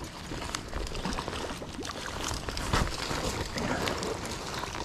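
A small hooked brown trout splashing at the river surface as it is played in on ultralight spinning gear and brought to the landing net, with irregular scuffs and rustles of handling close to the microphone.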